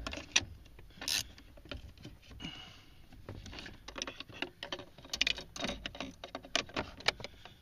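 Short hand wrench tightening the 12 mm nuts on an accelerator pedal assembly's mounting studs: a string of quick, irregular metal clicks and rattles, with brief rustles of the hand and tool in between.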